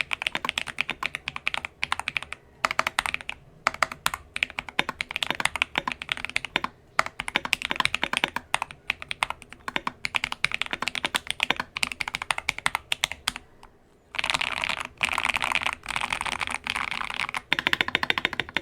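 Keychron V1 mechanical keyboard with lubed tactile switches (Akko V3 Cream Blue on the letters, Keychron Brown on the rest) and tape-and-foam damping mods, being typed on in quick bursts with short pauses. About fourteen seconds in, the typing turns into three dense runs of very fast, continuous keystrokes.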